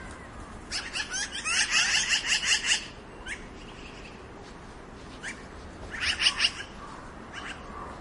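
Black-billed magpie calling: a rapid run of chattering notes about a second in, lasting about two seconds, then a couple of single calls and a second, shorter chattering run about six seconds in.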